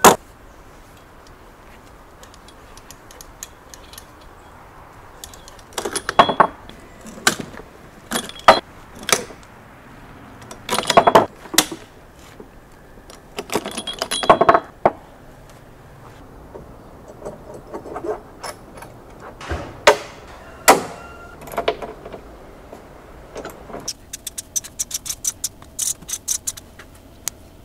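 Metal tubes and a pipe cutter handled on a wooden workbench: scattered sharp metallic clinks and clanks, some in quick clusters, as the cutter is set on a steel tube and worked around it. Near the end a marker writing on paper gives a fast run of fine ticks.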